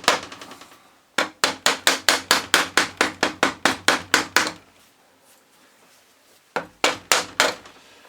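Rapid hammer-like taps on a Transit starter motor's housing, about four a second, to free the field housing with its magnets. A long run of taps is followed by a pause of about two seconds, then a short burst of four more near the end.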